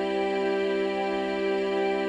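Yamaha PSR-E273 portable keyboard playing an organ voice: one chord held and sustained without change.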